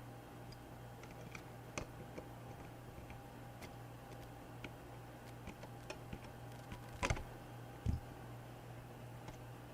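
Small screwdriver driving tiny screws into a laptop's replacement GPU fan: scattered light ticks and clicks, with a louder sharp knock about seven seconds in and a dull thump just after, over a steady low hum.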